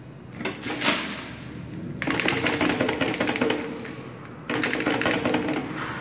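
The plastic dust container of a Brastemp Clean bagless vacuum cleaner clicks twice as its release button is pressed and the bottom flap opens. Then come two bouts of dense, rapid rattling and rustling as the collected dust and debris are emptied out into a plastic bin liner.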